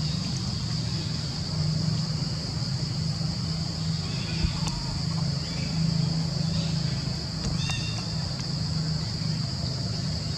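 Outdoor forest ambience: a steady high-pitched insect drone over a low steady hum, with a few short high chirps about four and about eight seconds in.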